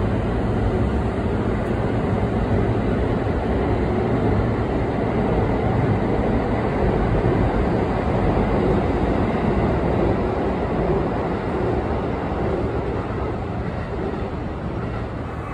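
JR West electric commuter train pulling away along the platform track, its steady rolling rumble easing off slightly near the end as it recedes.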